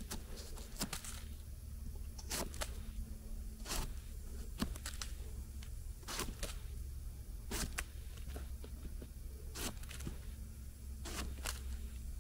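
A knife blade scraping and cutting into the firm flesh of a large bolete's stem: short scratchy strokes at an irregular pace, often two in quick succession.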